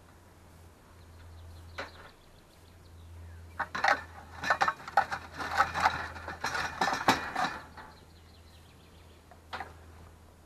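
Clinking and clattering of hard objects: a burst of quick knocks lasting about four seconds in the middle, with a single click about two seconds in and another near the end.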